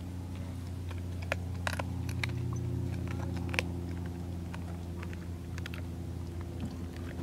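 A dog licking and chewing, heard as a few scattered short clicks and smacks, most in the first half, over a steady low hum.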